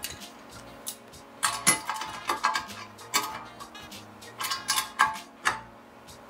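Hand wrench tightening lock nuts onto bolts through a steel bracket flange, metal clicking in four short bursts.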